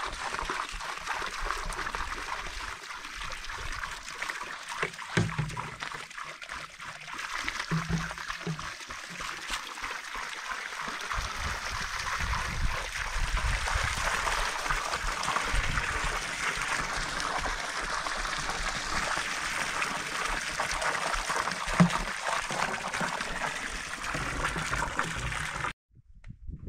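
Water pouring and splashing from plastic jugs and a watering can into a hollow in a heap of dry sand and cement, wetting the mix to make mortar by hand. A steady trickling pour that cuts off suddenly near the end.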